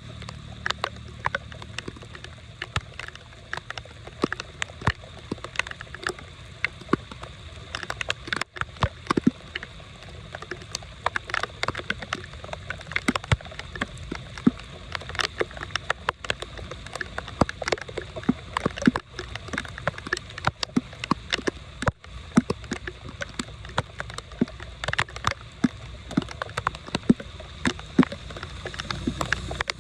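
Drain water rushing and gurgling, with a low steady rumble and many irregular sharp pops and splashes.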